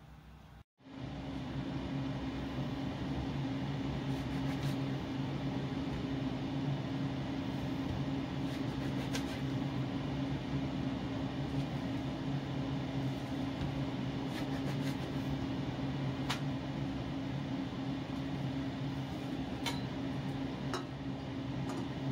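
Steady mechanical hum of a running kitchen appliance motor, with a few faint light clicks from handling on the counter near the middle and the end.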